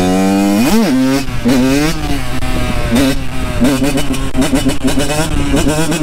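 Two-stroke Kawasaki KX85 dirt bike engine under hard throttle while the rider holds a wheelie. The pitch climbs steadily, jumps in one sharp rev just under a second in, then rises and falls unevenly as the throttle is worked.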